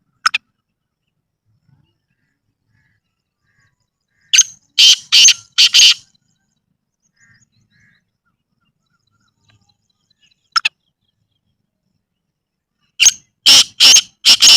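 Black francolin calling loudly and harshly: a single short note, then a rapid run of about five grating notes. The same pattern comes twice: a single note, then a run of about five notes.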